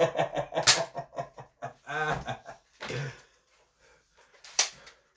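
A person laughing in rapid bursts for about three seconds, then quiet, broken by a sharp click near the end.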